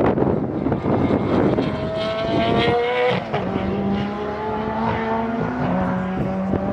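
Race car with a Suzuki Hayabusa inline-four motorcycle engine accelerating hard, its pitch climbing through the revs, with a quick drop at an upshift about halfway through and another near the end.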